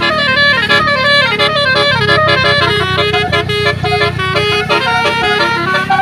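Bus telolet horn, the multi-tone musical air horn of an Indonesian Bukit Jaya bus, playing a fast tune of rapidly changing notes over the low, steady running of the bus engine.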